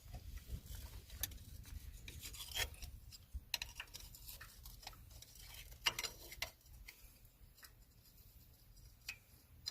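Faint scraping and scattered light clicks of a small aluminium plate being worked into place by hand as a shim, over a low steady hum.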